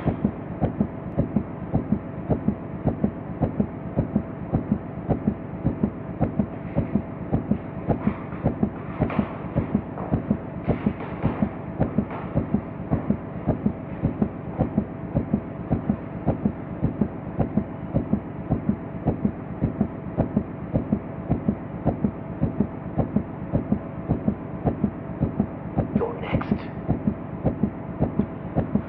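Heartbeat sound effect thudding in a steady, even rhythm over a sustained low hum, as an eerie horror-film soundtrack.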